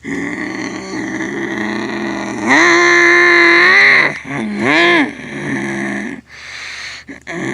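Monster truck's supercharged V8 engine being revved hard in blips. It climbs sharply about two and a half seconds in and holds high for over a second, gives another quick rev around five seconds, cuts out briefly twice near the end and starts climbing again.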